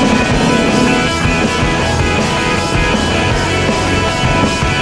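Background rock music, steady and loud.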